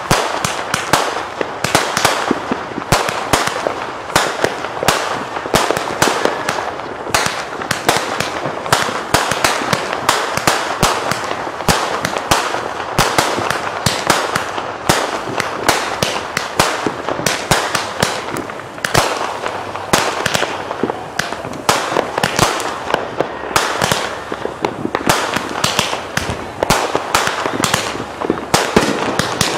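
Aerial fireworks going off in quick succession: a continuous string of sharp bangs and crackling bursts, several a second, with no let-up.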